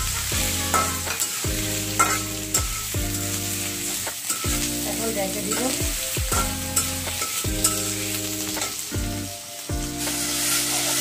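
Potato wedges sizzling in hot oil in an aluminium karahi while a metal spatula stirs and scrapes them against the pan, the scrapes coming about every second. Low humming tones shift in pitch every second or so underneath.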